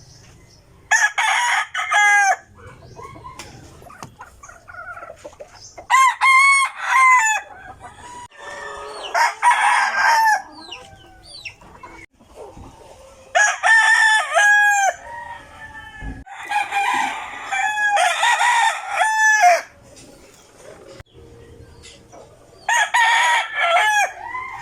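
Roosters crowing, about six long crows one after another with short gaps between them, the last starting near the end.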